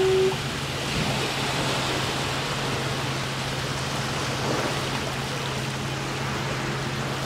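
Steady, even rushing noise, like wind or running water, with a low steady hum beneath it. A single held note cuts off just after the start.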